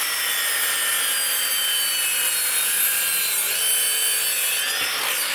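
DeWalt DCS781 60V 12-inch cordless sliding miter saw with its 60-tooth blade cutting a 45-degree miter through a 2x12 board: a steady high motor whine over the rasp of the teeth in the wood, its pitch sagging a little under the load. Near the end the motor begins to wind down with the cut unfinished, since the saw cannot get all the way through a 2x12 at 45 degrees.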